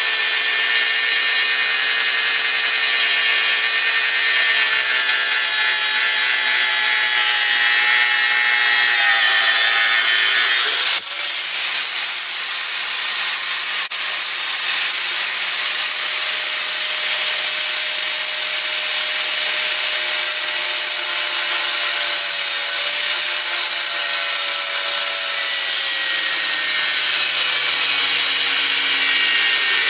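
A power tool cutting through thick 5160 spring steel: a loud, steady high-pitched whine over grinding noise, its pitch sagging and shifting as the cut loads it, with a sudden jump in pitch about 11 seconds in.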